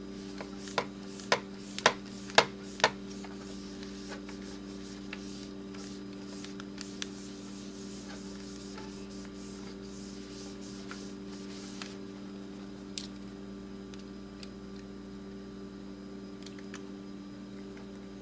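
Cloth rubbing over the glass layer of an LCD screen, with five sharp clicks about half a second apart in the first three seconds and scattered light ticks later, over a steady low hum.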